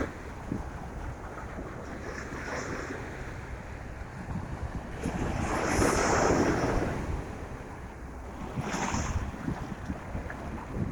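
Ocean waves breaking and washing up a beach, the loudest swell about halfway through and a smaller one near the end, over steady wind buffeting the microphone.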